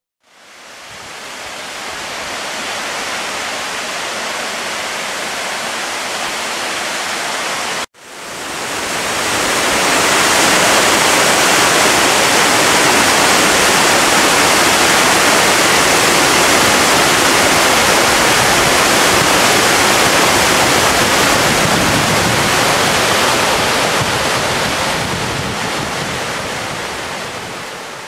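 Steady rushing of a three-tiered mountain waterfall, water pouring and splashing over rock. It fades in, cuts off sharply about eight seconds in, returns louder, and fades out at the very end.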